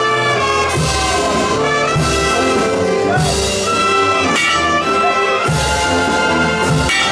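Brass band music: trumpets and trombones holding chords over bass drum thumps and repeated cymbal crashes.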